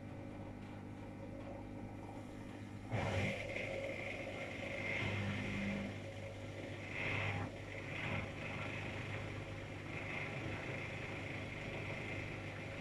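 AEG Lavamat washing machine running in its service test: a steady low motor hum, with a sudden rise in louder churning noise about three seconds in that keeps swelling and easing.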